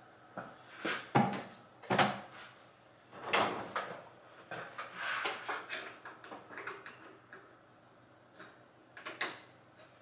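Hands working inside a refrigeration unit: irregular knocks, clicks and rustling as parts and cables are handled, with a few sharp knocks in the first four seconds and one more near the end.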